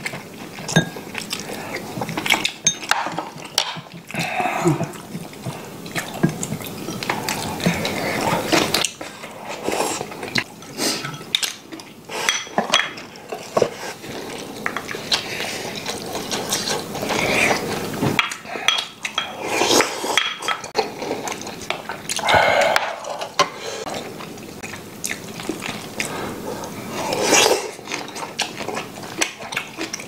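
Metal spoons and chopsticks clinking against ceramic bowls and a stew pot, with chewing and slurping of tuna kimchi stew: the close, repeated clicks and wet mouth sounds of a meal being eaten.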